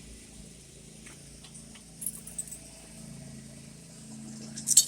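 Quiet handling noise over a low steady hum: a few faint clicks about two seconds in, then one sharp click near the end.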